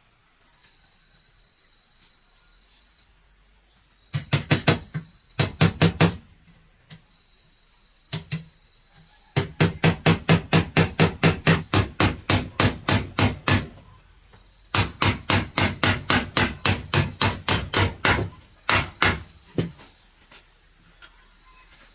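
Rapid hammer blows on wood, about five a second, in several runs with short pauses between them. Insects chirr steadily in the background.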